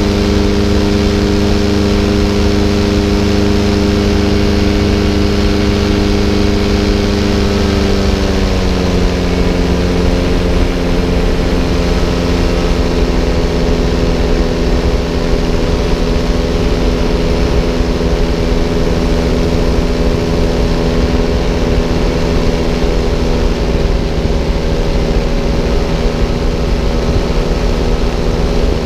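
Paramotor engine and propeller running steadily in flight; about eight seconds in the engine note drops as the throttle is eased back, then holds level at the lower setting.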